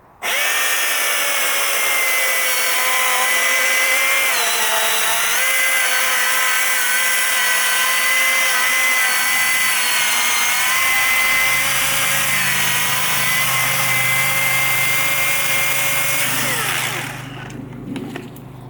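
Milwaukee battery-powered chainsaw running at full speed with a steady electric whine while cutting a large tree. Its pitch sags briefly about four seconds in as the chain loads up. About seventeen seconds in it winds down with a falling whine.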